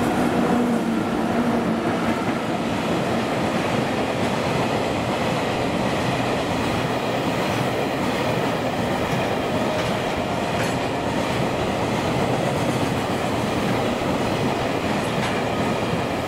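Freight train of gasoline tank wagons passing through a station at speed: a steady rumble and clatter of steel wheels on the rails. At the start, a steady hum from the second of the two EF64 electric locomotives fades out as it goes by.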